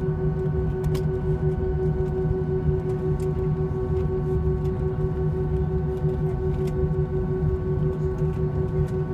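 Airbus A320neo taxiing with its engines at idle, heard inside the cabin: a steady hum of several held tones over a low rumble, with a few faint clicks.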